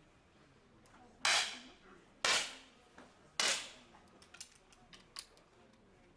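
Three 10 m air pistol shots about a second apart, each a sharp pop with a short ringing tail, followed by a few faint small clicks.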